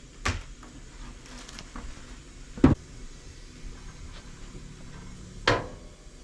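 Cookware being handled at the stove: three sharp knocks and clinks of a pot and utensils, the loudest in the middle, with a few lighter ticks between, over a faint steady hum.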